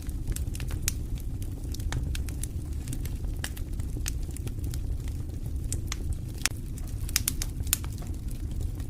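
Wood campfire crackling: irregular sharp pops and snaps, a few louder ones near the end, over a steady low rumble of the burning fire.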